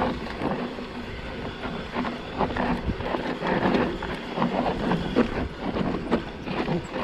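Electric mountain bike rolling fast down a rough, rocky dirt trail: a continuous irregular clatter of tyres, chain and frame knocking over rocks and bumps.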